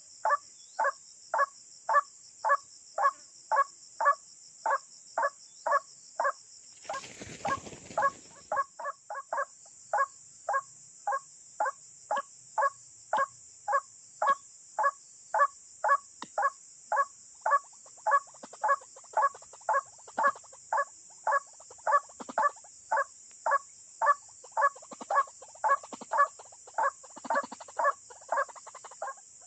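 White-breasted waterhen calls repeated very evenly, about two a second, over a steady high hiss. A brief burst of noise cuts across the calls about seven seconds in.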